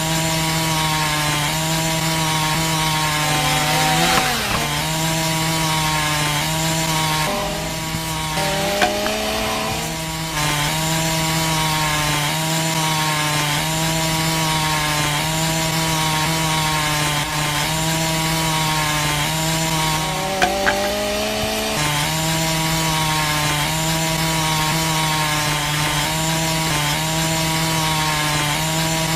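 Miniature DIY circular saw, a small DC motor spinning a disc blade, running steadily as it cuts into a wooden stick with a rubbing, grinding hum. Its pitch sags briefly three times as the motor bogs under the load of the cut, then recovers.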